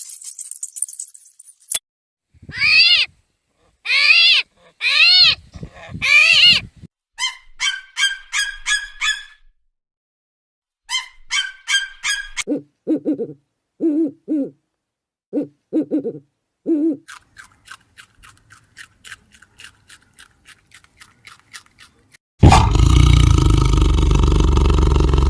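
A string of different animal calls: four arching high-pitched cries, then quick runs of short chirping calls, a set of short lower calls and a fast faint ticking series. About 22 seconds in, a loud harsh noisy call starts and runs on, the loudest sound in the stretch.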